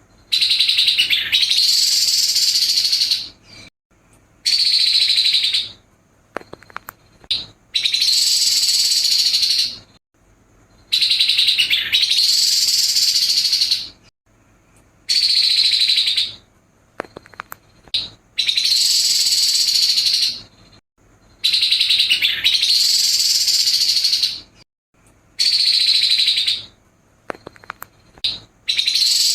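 Grey-headed babbler (tepus kepala abu) singing harsh, rapid song phrases. Each burst lasts one and a half to three seconds, and the bursts repeat about every three to four seconds with short pauses between them.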